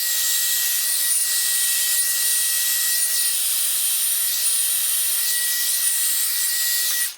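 Small handheld hair dryer running at a steady blow, a rushing hiss with a thin high whine, switched off just before the end.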